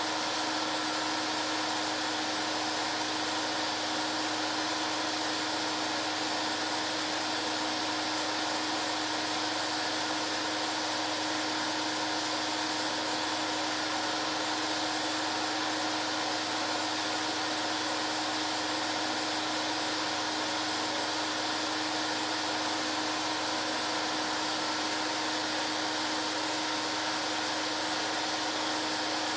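Film projector running steadily: a constant motor whir with a steady hum, unchanging throughout.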